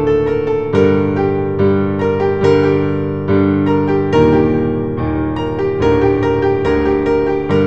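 Slow background piano music, a new chord or note struck about once a second over sustained tones.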